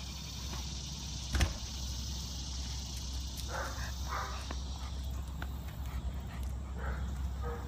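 A dog barking in short groups of two or three, with a single sharp knock about a second and a half in as the door shuts, over a steady low outdoor rumble.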